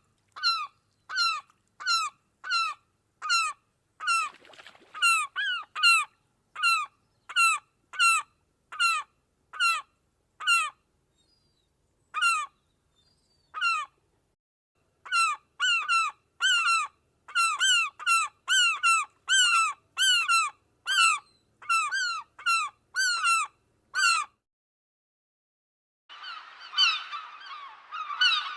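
A gull giving a long series of short, downward-sliding calls, about one and a half a second, thinning to a couple of calls in the middle. Near the end many gulls call at once in an overlapping clamour.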